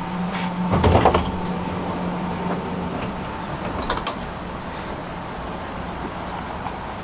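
Tram running, heard from inside: a steady low electrical hum, with a loud rattling clunk about a second in and a sharp clatter about four seconds in.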